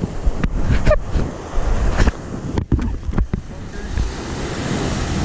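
Wind buffeting the microphone over the wash of open water, with a few short knocks in the first few seconds before it settles into a steady rushing.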